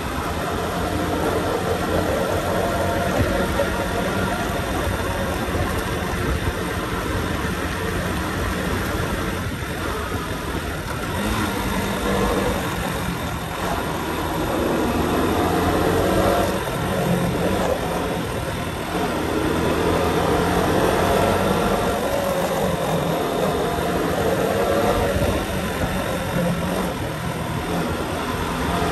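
Motorcycle engine running while riding, over a steady rush of wind and road noise. The engine note rises and falls a few times with the throttle.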